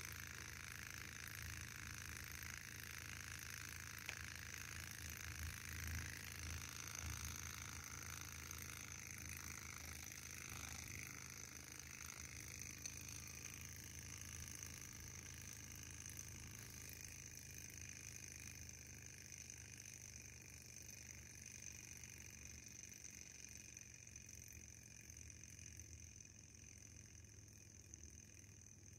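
Faint running of a tiny Kontax Manson-type hot air engine, a steady light mechanical sound that slowly fades. There are a few soft knocks about four to seven seconds in.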